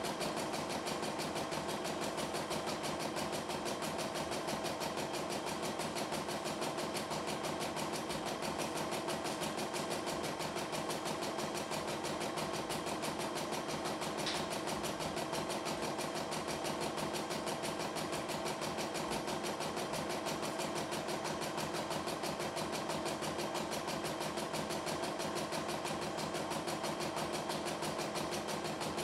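CNY E960 computerized embroidery machine stitching a design, its needle running at a steady, rapid, even rhythm.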